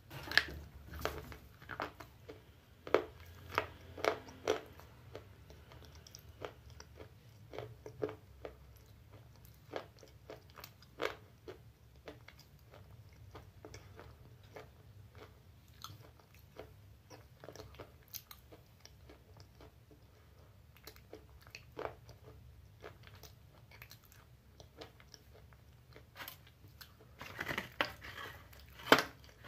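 Chewing and crunching a white slate pencil: crisp cracks come at irregular intervals. Near the end there is a burst of rustling and clicking as more pencils are shaken out of their cardboard box.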